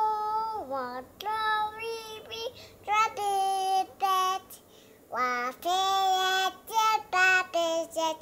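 A toddler singing without words in a high voice, a string of held notes broken by short pauses.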